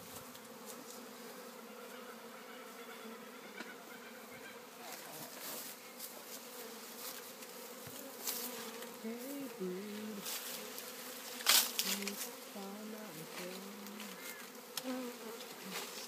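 Honeybee swarm clustered on a tree branch, buzzing steadily in a low hum. From about halfway the buzz wavers up and down in pitch, and a sharp click stands out about two-thirds of the way through.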